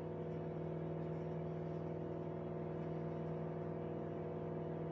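A steady, even machine hum made of a few fixed tones, with no change in pitch or level.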